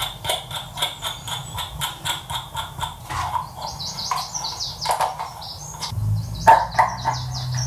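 A steel nut spun by hand along a threaded rod fixed through a plastic tub lid: rapid light clicks, about five a second. About halfway through they give way to irregular knocks and high chirping squeaks.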